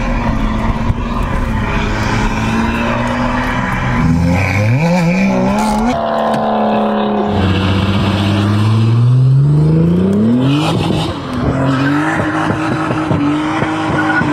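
Recorded sports-car engine sound played loudly through a JBL portable speaker inside a Renault Modus. The engine revs up in two long rising sweeps, one about four seconds in and one about eight seconds in, each dropping back as if shifting gear, then holds a steady drone near the end.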